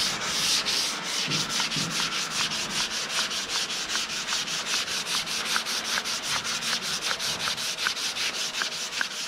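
Fine 500-grit sandpaper rubbed back and forth by hand over polyester body filler on a car panel, in quick, even strokes, several a second, rounding off a body line that had come out too sharp.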